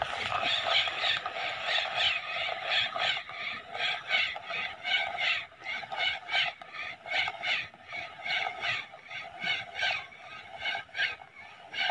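KastKing Royale Legend II spinning reel cranked steadily on the retrieve, a rhythmic whir pulsing about two to three times a second with each turn of the handle.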